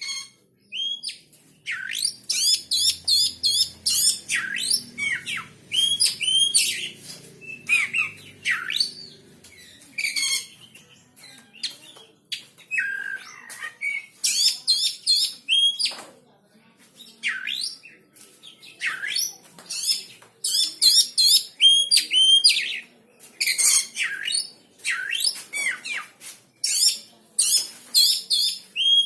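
Small songbird singing loud, rapid phrases of sharp, high chirps and trills, repeated in bursts with short pauses between them.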